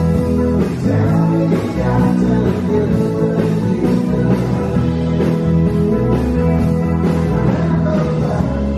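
Live rock band playing, with electric guitars, organ and drums.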